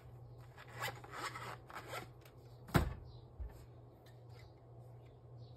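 Screwdriver and fingers scraping and clicking against the plastic parts inside an Epson L3150 inkjet printer, digging out crumbs and seeds that are jamming its paper feed. There is one sharper knock a little before halfway, and a steady low hum runs underneath.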